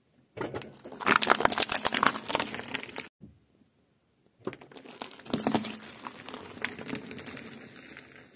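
Car tyre rolling over a plastic mask, the plastic cracking and crackling for about three seconds. After a short break, a second, quieter stretch of crushing as the tyre rolls over a kiwi fruit and two tealight candles, their thin metal cups crumpling and the fruit squashing.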